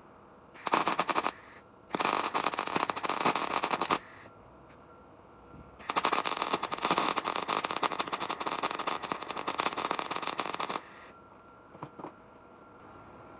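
Wire-feed welder arcing in three bursts, a short one and then two longer ones, with a dense, even crackle.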